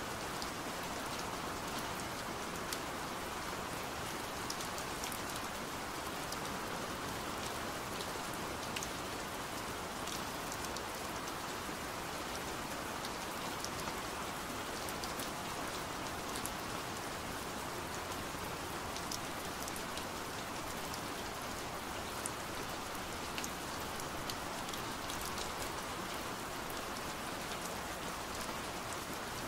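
Steady rain falling on a window pane: an even hiss with scattered sharp ticks of single drops.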